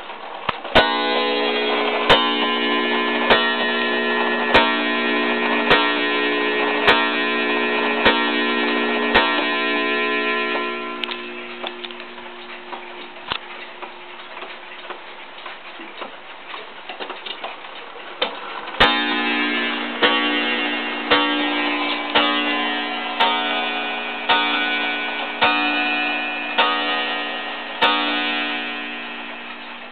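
Waterbury weight-driven wall clock striking the hour: eight ringing strokes a little over a second apart, then, after a stretch of plain ticking, a second run of nine strokes as its hands are set forward. The pendulum ticks steadily under and between the strikes.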